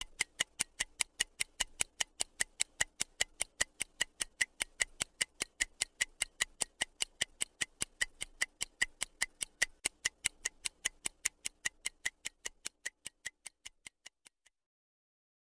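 Stopwatch ticking sound effect: a steady run of sharp ticks, about four a second, counting down a timer. The ticks fade away and stop shortly before the end.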